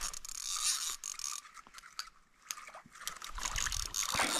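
Fishing reel being cranked to wind in line with a small trout on: a fine, rapid gritty clicking of the reel's gears, pausing briefly about two seconds in.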